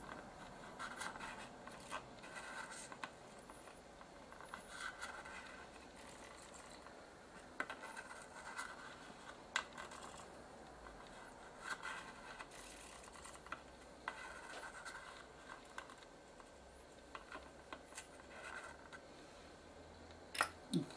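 Faint, broken scratching and scraping of a soldering iron tip worked along solder-covered surface-mount IC pins, with scattered small clicks.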